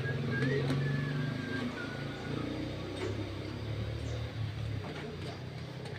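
A vehicle engine running steadily at idle with a low hum, with a few faint bird chirps in the first two seconds.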